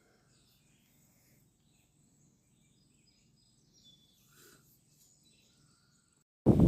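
Faint, scattered songbird chirps over quiet outdoor background. Near the end, a sudden loud rush of noise cuts in.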